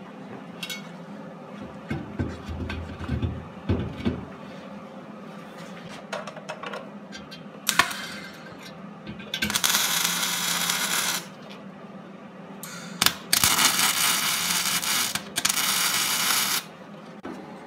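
Stick welding a steel wheel rim to a steel plate: two spells of the electric arc hissing and crackling, about two and three seconds long, in the second half. Before them come a few light clanks and knocks of the steel being handled, over a steady low hum.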